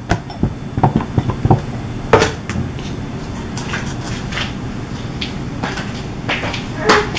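Kitchen clatter of utensils and dishes: a quick run of knocks and clinks, the loudest about two seconds in, then fainter scattered taps.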